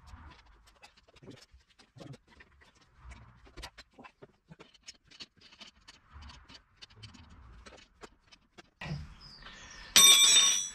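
Faint, scattered clicks and scrapes of hands and tools working on a car's front suspension strut. About ten seconds in, a short loud whirring burst.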